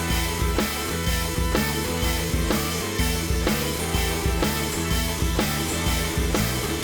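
Background music: rock with drums, bass and guitar and a steady beat.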